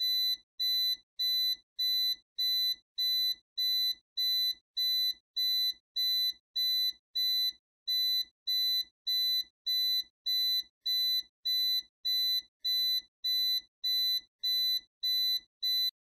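Smoke alarm beeping as an added sound effect: a shrill electronic beep repeating about twice a second, which cuts off suddenly at the end.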